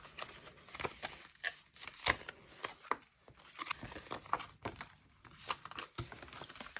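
Plastic product packaging being handled and opened: irregular crinkling rustles and small clicks, with short pauses between.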